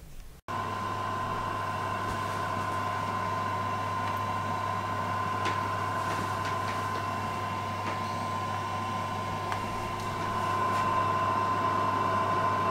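Electric food dehydrator running steadily, its fan motor humming with a constant whine, beginning about half a second in and getting a little louder near the end.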